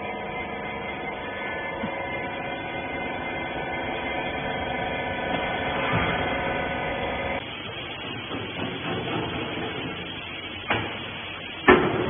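Hydraulic press baler's power unit running with a steady multi-tone hum that stops abruptly about seven seconds in. Then two sharp knocks near the end, the second the loudest.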